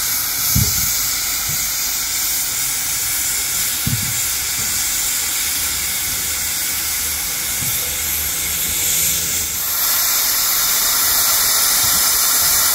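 Narrow-gauge steam locomotive hissing steam: a steady hiss that gets louder about ten seconds in, with a few short, dull low thumps.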